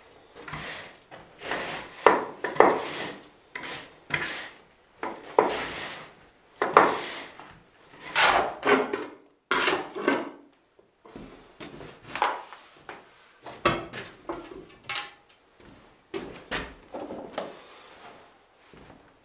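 Broom and shovel sweeping and scraping debris across a concrete floor, a stroke about every second, fainter in the second half.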